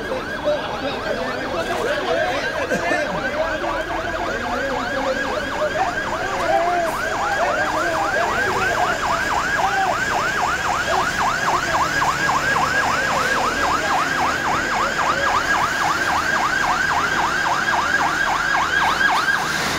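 Fire engine's electronic siren yelping in fast, even rising-and-falling sweeps, about four a second, cutting off near the end.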